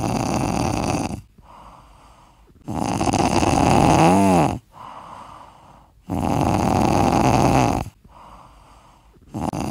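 Sleeping kitten snoring with its mouth open: a loud snore about every three seconds, with a softer breath between each.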